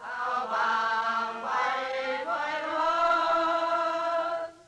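A choir of voices sings long held notes, moving to new notes twice, and breaks off just before the end.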